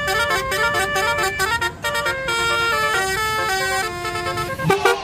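Telolet bus horn playing a tune: a fast run of short, stepped notes that jump from pitch to pitch without a break.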